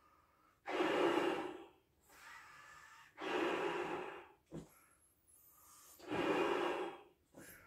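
A man blowing into a clear 24-inch Belbal latex balloon by mouth. There are three long puffs of about a second each, about every two and a half to three seconds, with quieter in-breaths between them and a short click after the second puff.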